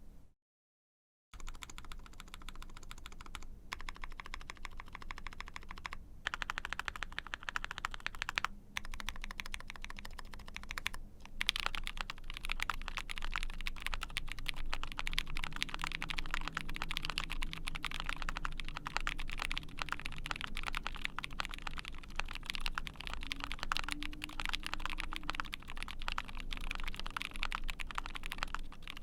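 Typing on an Ai03 Vega mechanical keyboard with a POM plate, GMK keycaps and linear Frankenswitches (vintage Cherry bottom housing, UHMWPE stem, 62 g spring): a deep-sounding, steady patter of keystrokes. After a brief dropout about a second in, the typing comes in short runs with small pauses, then runs on faster and unbroken from about twelve seconds in.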